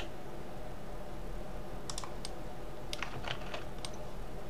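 Computer keyboard keys and mouse buttons clicking in scattered taps: a couple about two seconds in and a quick cluster around three seconds, over a low steady hum.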